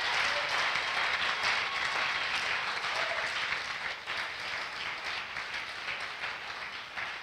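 Church congregation applauding, a dense patter of many hands clapping that dies away near the end.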